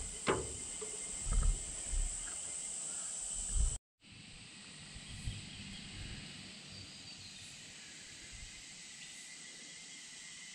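Steady high-pitched drone of insects in the surrounding bush. About a third of a second in comes a single sharp metal clink with a short ring, from tool work on the rusted tractor, followed by a few dull knocks; near four seconds the sound drops out briefly and the insect drone carries on more quietly.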